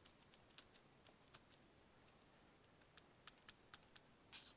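Faint, light taps of a makeup sponge dabbing ink onto a leaf stencil, irregular, a few early and a quick cluster of taps towards the end, with a soft brush of sponge on paper just before it stops.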